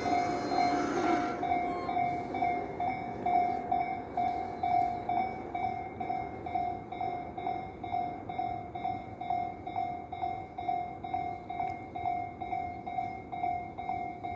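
Japanese level-crossing warning bell ringing on, a steady electronic ding repeating about twice a second. In the first second or two an electric train runs through and fades away.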